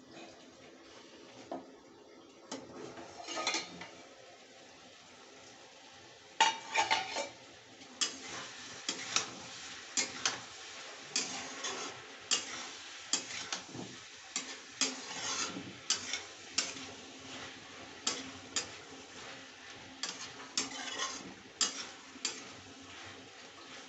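Spatula stirring potatoes and peas in a kadhai, knocking and scraping against the pan about once a second, over a faint sizzle. A louder clatter of metal comes about six seconds in.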